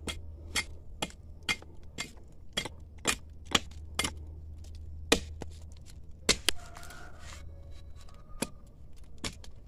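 An axe chopping into the bark of a jatobá tree trunk: short sharp strikes about twice a second for the first four seconds, then a few more spaced strikes.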